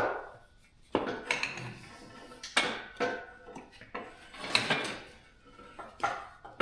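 Irregular metal clanks and knocks, several with a brief metallic ring, from metal tools and parts being handled.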